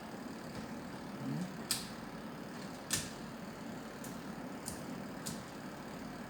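Mechanical clicking from a washing machine timer being worked: four sharp, separate clicks at uneven intervals over a steady faint hiss.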